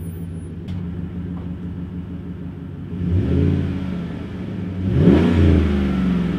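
Chevrolet Silverado pickup's engine idling through a large aftermarket exhaust tip, then revved twice: a slower rise about three seconds in and a sharp blip up and back down about five seconds in.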